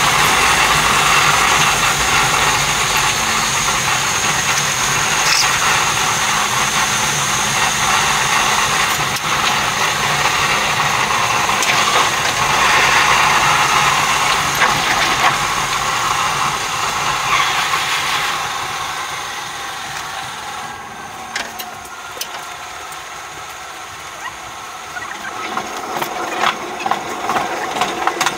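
Train cab noise at line speed: a steady rushing roar of wheels on rail and wind. It grows quieter about two-thirds through, then near the end a run of rapid clicks and clatters comes as the wheels cross rail joints and points into the station tracks.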